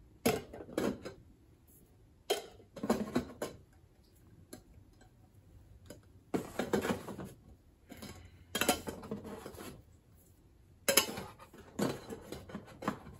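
Small metal candle tins clinking and clattering against each other as they are taken out of a cardboard box and stacked, in about five short bursts with quiet pauses between.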